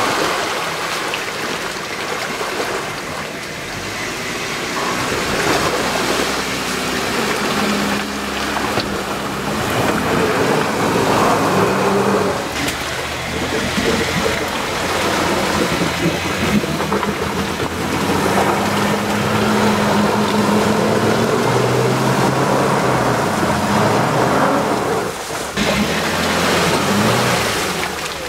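Jeep Wrangler Unlimited's engine running at low revs, its pitch shifting up and down, while its Treadwright Guard Dog mud tyres churn through a muddy puddle with steady splashing and sloshing water.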